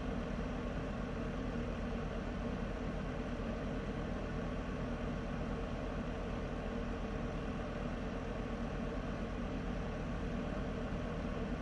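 Heater running steadily: an unchanging rush of noise over a low hum.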